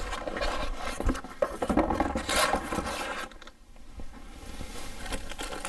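Handling noise from a cardboard box and plastic-wrapped filter cartridges: irregular scraping and rustling, with a few short knocks. It quietens in the second half.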